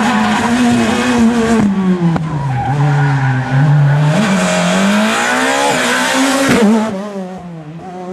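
Škoda Fabia S2000 rally car's four-cylinder engine at high revs. The note falls as it slows, with a few sharp cracks as it comes off the throttle, then climbs again under hard acceleration. About six and a half seconds in it drops away and fades.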